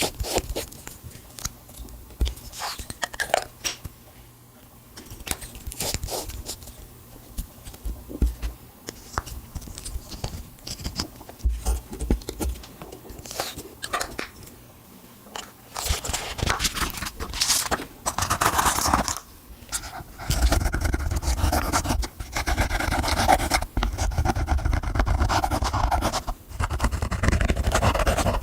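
Slime being squished, folded and stretched by hand, giving sticky clicks and pops that come scattered at first and turn into dense, near-continuous crackling squelches from about twenty seconds in.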